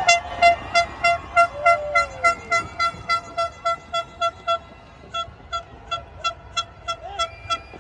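A horn tooting in a fast, regular run of short beeps, about three a second, pausing briefly past the middle and then carrying on more faintly.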